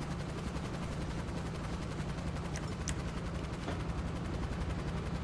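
Battle sound from a military shooter video game: a steady, fast low rattle with a rumble underneath, and no single shot standing out.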